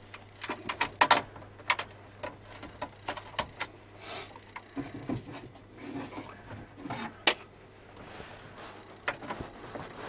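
Plastic radio dash-kit bracket being handled and fitted into a pickup's dash opening: irregular clicks and knocks of plastic on plastic, with some rubbing in between.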